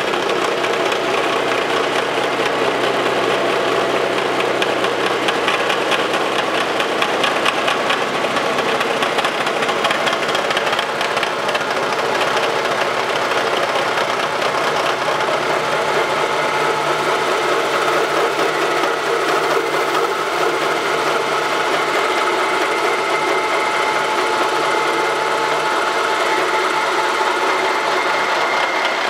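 Face mill on a Wells Index vertical milling machine taking a steady cut across the tops of two metal tool post holders, the cutter's teeth chattering through the metal as the table feeds. Its tone shifts about a third of the way through.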